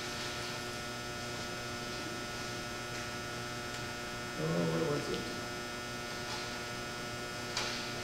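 Steady electrical mains hum, a buzz with many overtones. A short low vocal sound comes about four and a half seconds in, and a brief click near the end.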